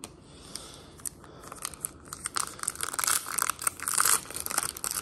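Foil trading-card pack wrapper being handled and torn open by hand: a few faint rustles at first, then a dense, quick crackle of crinkling foil from about two seconds in, growing louder.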